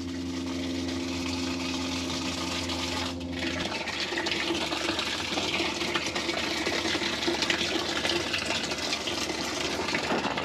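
Water gushing steadily into a container. A steady low hum runs under it and stops about three and a half seconds in.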